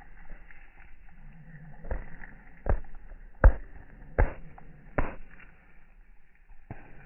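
Rabbit chewing garden greens close to the microphone, in slow motion: five loud crunches about three-quarters of a second apart, the loudest in the middle, between about two and five seconds in.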